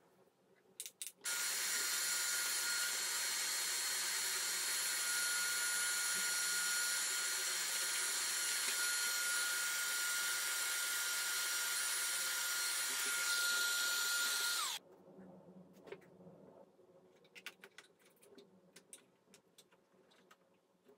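Handheld vacuum cleaner switched on about a second in, running with a steady high whine for about thirteen seconds, then switched off, stopping suddenly. A few faint light clicks follow.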